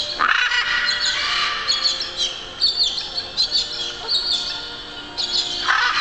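Parrots calling with short, high-pitched squawks and chirps, one after another.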